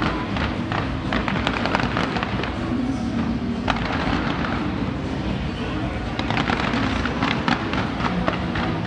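Fireworks display going off: many bangs and crackles in quick succession, with one sharper report about three and a half seconds in.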